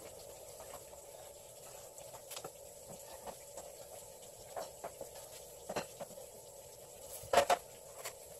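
Knife slicing a sea bass fillet for sashimi on a wooden cutting board: scattered soft taps and clicks of the blade, with two sharper clicks close together near the end, over a steady background hum.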